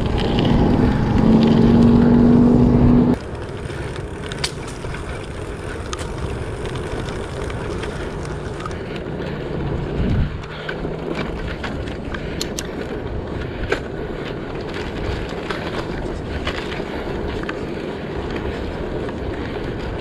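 Riding noise from a bicycle's handlebar-mounted action camera: steady rumble of tyres on asphalt with wind, and scattered small clicks and rattles. For the first three seconds a motor vehicle's engine hum is loud over it, then it cuts off abruptly.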